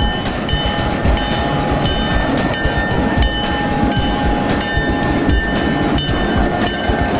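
Canadian National diesel locomotives hauling a freight train past at close range, their engines rumbling low and steady, while a bell rings in a rapid, even rhythm of about three strokes a second.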